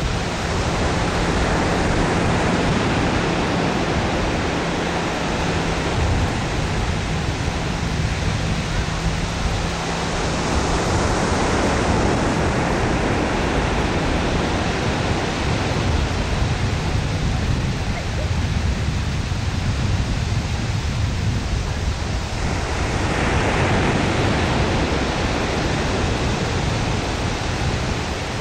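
Steady rushing noise of surf on a sandy beach mixed with wind buffeting the microphone, which gives a heavy, uneven low rumble.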